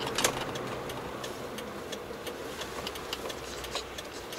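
Car driving, heard from inside the cabin: steady low engine and road noise with scattered light clicks and rattles, a sharper click just after the start.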